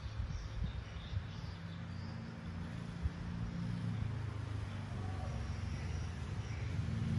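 A low engine hum that slowly grows louder, with a few small metallic clicks from a watch's case back being worked open.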